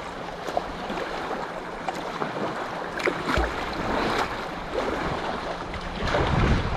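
Choppy waves splashing and slapping against a kayak, with a heavy low slap about three and a half seconds in and louder splashing near the end.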